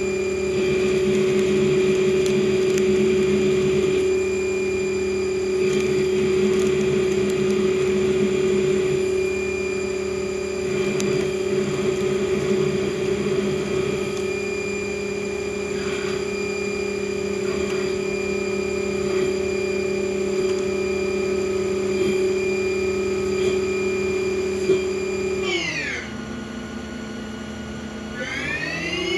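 CNC lathe (Haas TL-1) running with a steady multi-tone spindle whine, with rough cutting noise through the first half. Near the end the whine drops sharply in pitch, holds low for a couple of seconds, then rises back as the spindle slows and speeds up again.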